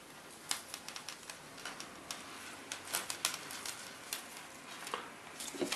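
Faint, irregular light clicks and ticks of a mackerel feather rig being coiled by hand: the monofilament line rustling and its hooks and beads tapping on each other and the wooden table.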